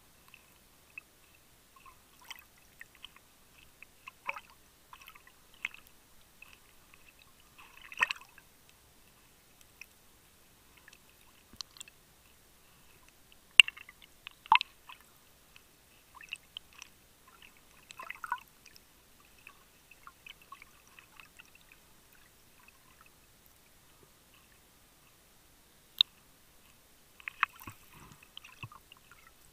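Underwater sound picked up by a submerged camera: scattered faint crackles and small clicks, a few sharper ticks, and a short cluster of clicks with low thumps near the end.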